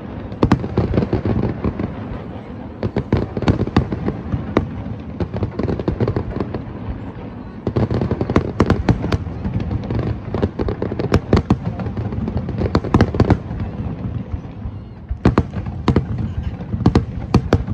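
Aerial firework shells bursting in a rapid finale barrage: many sharp bangs in quick clusters over a continuous low rumble.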